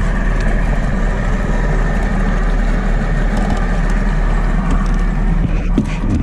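Small boat's outboard motor idling steadily, with a few light knocks near the end.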